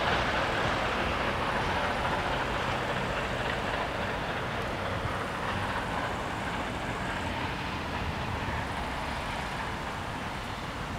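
Steam train moving away along the track: its running noise slowly fades.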